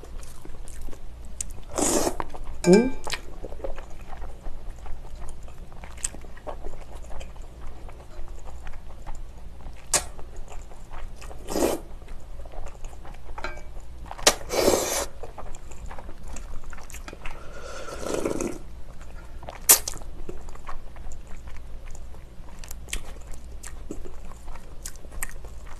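A person slurping and chewing noodles in a spicy broth, with short sharp clicks scattered throughout and a few longer noisy slurps, about 2 s in, around 14 to 15 s, and near 18 s.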